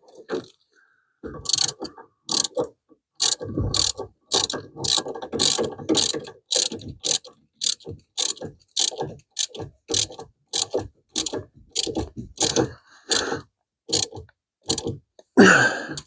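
Hand ratchet wrench clicking in steady back-and-forth strokes, about two a second, as a bolt on the clutch pedal assembly is tightened down.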